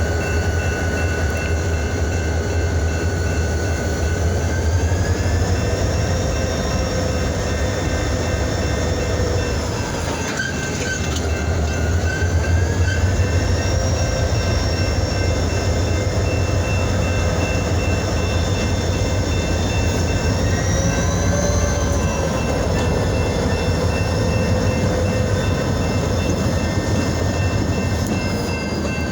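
Diesel freight locomotive running with a steady low rumble, and a whine over it that rises and falls in pitch twice.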